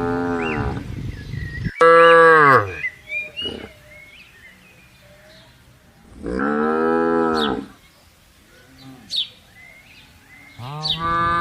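Cattle mooing: four long moos a few seconds apart, each rising and then falling in pitch, the loudest starting abruptly about two seconds in.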